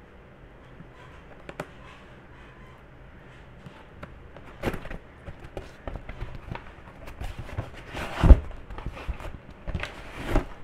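A shipping package being opened and its contents handled: scattered rustling, taps and knocks, the loudest a single thump about eight seconds in.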